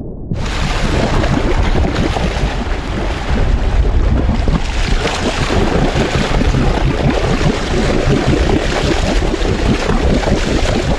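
Sea water rushing and splashing at a boat's side, with heavy wind noise on the microphone; it cuts in suddenly just after the start in place of a muffled underwater sound.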